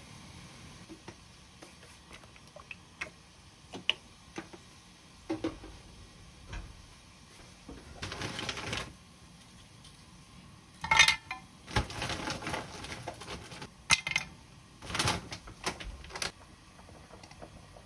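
Scattered clicks, taps and short rustles of kitchen handling as cooking oil is drizzled into a frying pan and raw shrimp are set down in it.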